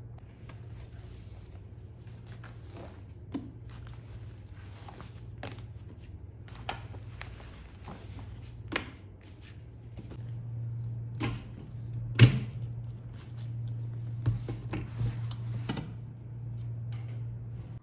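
Scattered clicks and knocks over a steady low hum, the loudest knock about twelve seconds in.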